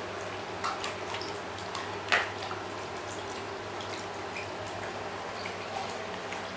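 Husky eating with its muzzle in a stainless steel bowl: irregular wet mouth sounds and light clicks against the metal, with one sharper click about two seconds in.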